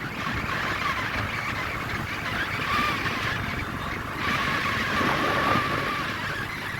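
Motorcycle running at road speed: a steady engine drone mixed with wind and road noise.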